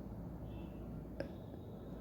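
A single short, sharp hiccup about a second in, over low steady background noise.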